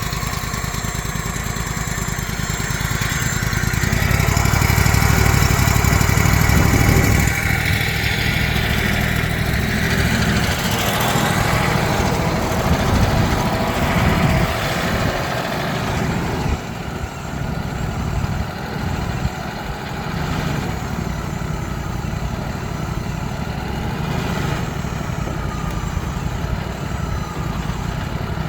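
Sawmill engine running steadily, working harder and louder for a few seconds from about four seconds in.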